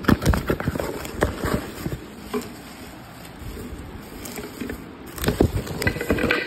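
Cardboard box and plastic wrapping being handled and opened: crackling rustles and knocks, busiest at the start and again about five seconds in.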